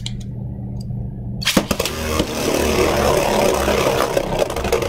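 Custom 3D-printed Beyblade Burst tops launched into a plastic stadium about a second and a half in: a sudden clatter as they hit the floor, then a steady whirring hiss with scattered clicks as a top spins on the plastic.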